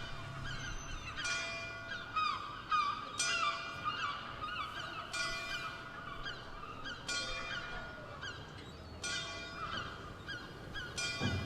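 A flock of geese honking, with repeated short calls that bend in pitch, one cluster after another, over faint music.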